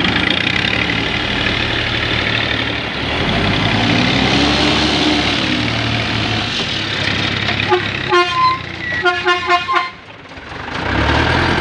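Diesel engine of a loaded Mitsubishi Fuso Canter dump truck running hard under full load as it is towed up out of a rut, its pitch rising and falling. About eight seconds in, a horn gives a string of about six short toots.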